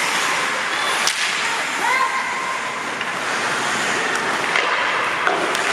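Ice hockey play in a rink: a steady hiss of skate blades carving the ice, broken by sharp clacks of sticks on the puck and ice. A player's short shout about two seconds in.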